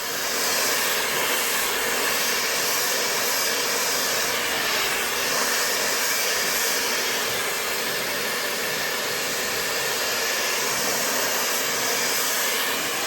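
High-speed brushless hair dryer with a 160,000 RPM motor blowing steadily: a constant rush of air with a high-pitched edge, pretty quiet for a dryer. It is switched off at the very end.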